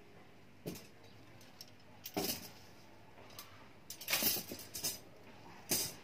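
Thin metal wire rods clinking and rattling against each other as a bundle of wire frames is handled and set down. There are short clatters about a second and two seconds in, a busier rattle around four to five seconds, and a last clatter near the end.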